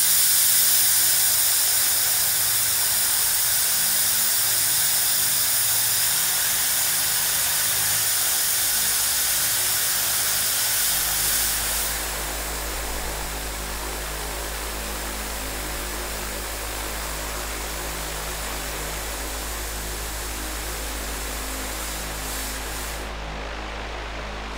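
Central Machinery 30-inch high-velocity pedestal shop fan running at maximum speed: a steady rush of air. About halfway through, the hiss drops and a low rumble comes in.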